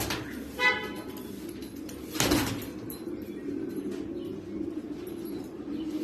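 Domestic pigeons cooing in a continuous low murmur. A short, high horn-like toot sounds about half a second in, and a brief noisy rustle about two seconds in.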